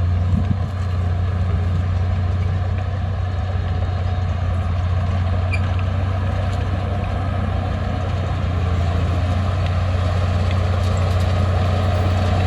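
Heavy diesel engine of earthmoving equipment running steadily, a low, even drone that neither rises nor falls.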